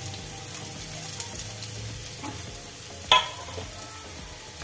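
Chopped onions sizzling steadily in hot oil in a kadhai over a lowered gas flame, being shallow-fried. A single sharp clank about three seconds in.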